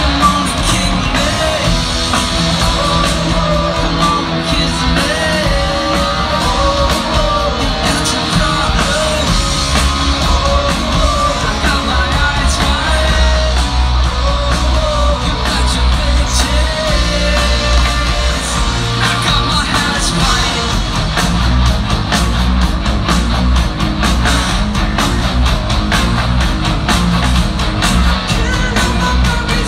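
Rock band playing live through a concert PA: a lead voice singing over electric guitars, bass and a steady drum beat, heard from the crowd.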